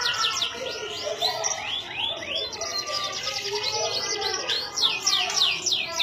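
Domestic canary singing in a long unbroken phrase of fast, high swooping notes. The swoops change to a quick rolling trill about halfway through, then go back to swoops.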